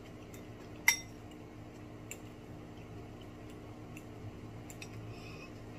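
Eating sounds from a lobster meal: one sharp, ringing clink about a second in, then scattered small clicks and, near the end, soft wet chewing over a steady low hum.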